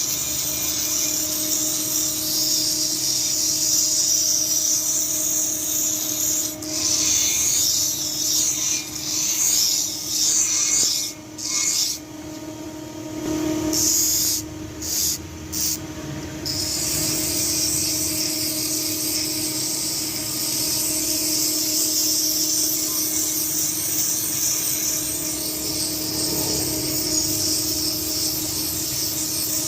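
Continuous abrasive grinding of steel over a steady motor hum. The grinding lets up briefly a few times around the middle as the work is lifted away, then runs on steadily.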